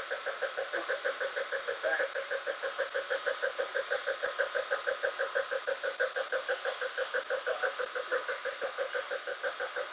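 BMW E36's M52 straight-six engine running with a steady, rhythmic knock, about six knocks a second.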